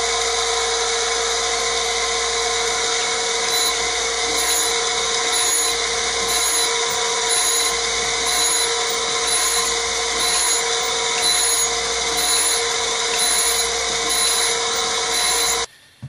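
Surface grinder running, its stone wheel making light finishing passes over a steel knife blade wetted with WD-40. A steady machine hum with a regular pulse about once a second as the table is cranked back and forth. It cuts off suddenly near the end.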